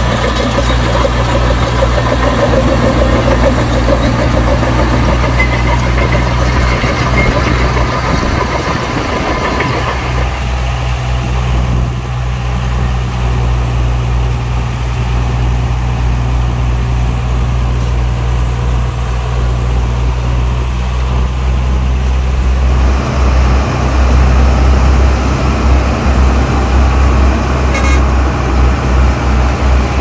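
Heavy diesel engine of earthmoving machinery running steadily with a deep drone. The engine note eases about ten seconds in and grows louder and more pulsing again near the end.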